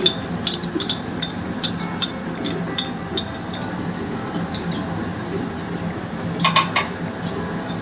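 A utensil clinking against cookware in quick irregular taps, two or three a second for the first few seconds, then a short cluster of louder clinks near the end, over a steady low hum.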